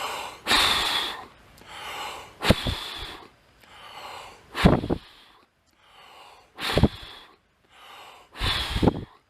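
A person breathing heavily close to the microphone, a loud breath roughly every second, some with a low thump of air hitting the mic.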